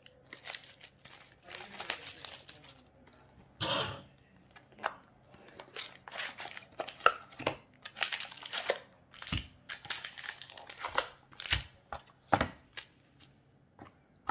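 Packaging of a trading-card booster box being torn open and unpacked: wrapping ripping and crinkling, cardboard being handled, and foil booster packs rustling as they are taken out and set down. It comes as an irregular run of short rips, crinkles and taps.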